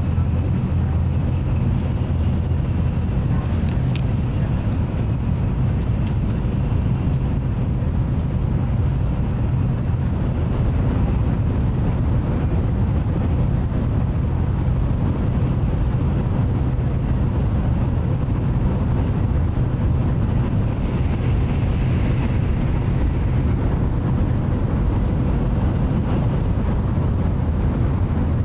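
Inside the passenger cabin of a Nozomi Shinkansen high-speed train running at speed: a steady low rumble with a faint even hum over it, and a few light clicks about four seconds in.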